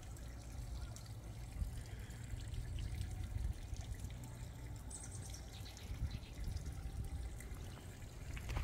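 Faint trickling water under a low, steady rumble, with a few light clicks.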